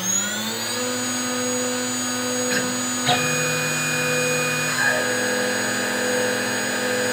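CNC router spindle motor spinning up, its whine rising in pitch and settling to a steady speed within the first second, then running steadily. A couple of brief clicks come around the middle, and a second tone joins for about a second and a half as the axis motors lower the end mill toward the brass blank.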